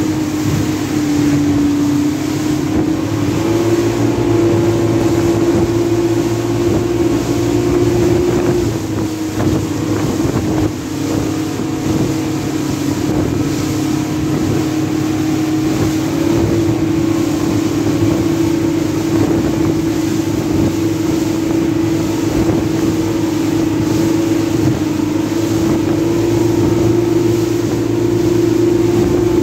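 Motorboat engine running at speed with a steady note that shifts slightly in pitch a few times, over the rushing and splashing of the boat's wake.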